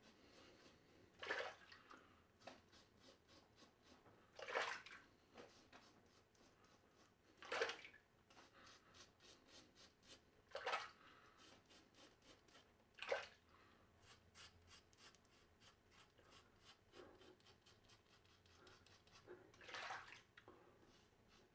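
Wet shave with a hand razor over a lathered face: six faint, short rasping swishes a few seconds apart, with a light crackle between them.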